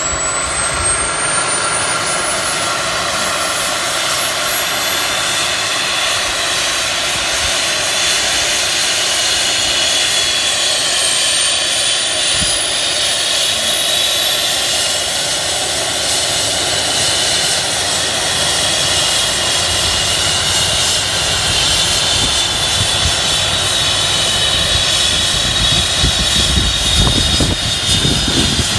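Airbus EC135 T2+ helicopter's twin turboshaft engines and rotor running on the ground, a steady high turbine whine over a loud rushing noise. Near the end a deep rumble grows and the sound gets louder as it powers up for take-off.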